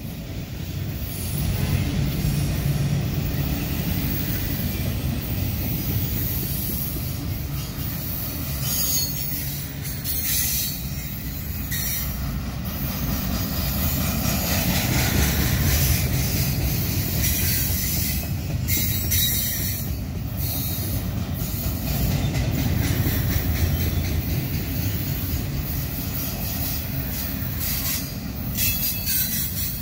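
A freight train rolling past at track level: a steady low rumble of wheels on rail, with brief high wheel squeals every few seconds.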